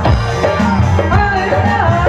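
Live Mising song played loud through a stage PA: a male singer's voice over keyboard, bass and a steady drum beat.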